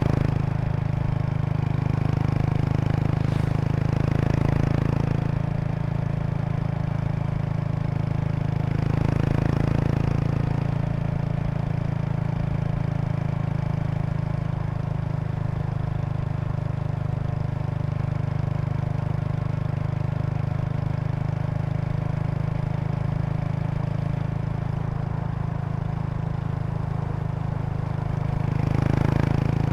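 Exhaust of a Kawasaki Estrella RS's 250 cc air-cooled single-cylinder engine through an aftermarket Yamato muffler, riding at an easy pace with a steady low thump. It swells briefly a few times. A faint buzzing rattle runs with it: a seat-bag stiffener board resonating with the bike's vibration.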